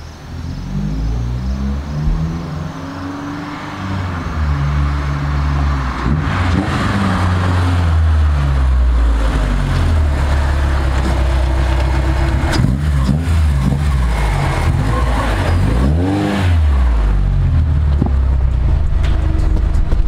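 Honda Civic hatchback with a B20 engine swap and a Yonaka cat-back exhaust driving up, its engine revving up and falling back several times, with one quick rev and drop near three-quarters of the way through. It then settles to a steady low note as the car rolls in.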